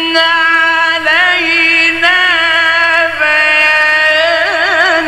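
A man's voice reciting the Quran in the drawn-out mujawwad style, holding one long melismatic vowel that steps between sustained pitches and breaks into a fast wavering ornament near the end.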